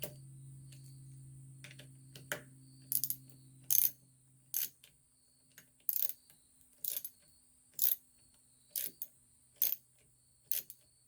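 Hand socket ratchet clicking in short strokes, about one a second, as a bolt on the ATV's handlebar lever clamp is tightened until snug.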